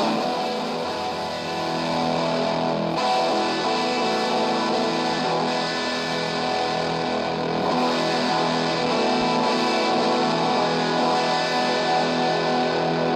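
Rock music: electric guitars playing held, ringing chords without singing.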